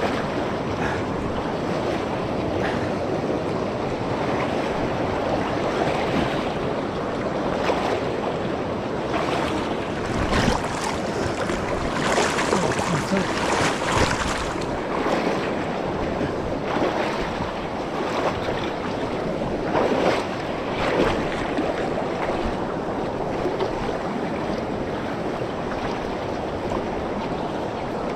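Fast-flowing mountain river rushing steadily over stones, with a few brief louder surges around the middle.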